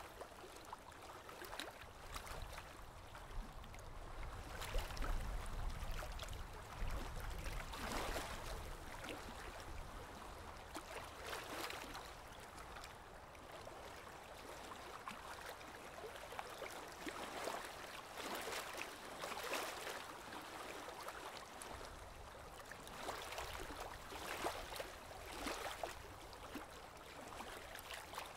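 Aquarium water trickling and gurgling steadily, with a louder watery rush swelling every few seconds.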